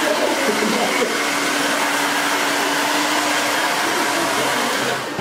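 Handheld hair dryer with a concentrator nozzle blowing steadily while thick natural hair is blow-dried and brushed out: a rush of air with a steady hum under it that fades out about three and a half seconds in.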